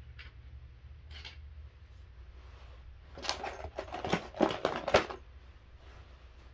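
Crinkling of a clear plastic hardware bag and clicking of small metal parts as bolts are picked from it, a dense burst about two seconds long starting about three seconds in, after a few faint clicks.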